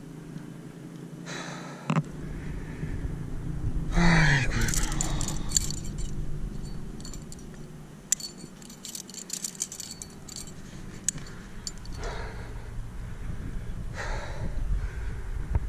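Quickdraws and carabiners on a rock climber's harness jingling and clicking in two clusters as he handles the gear and clips the rope, with a short grunt falling in pitch about four seconds in and a few hard breaths.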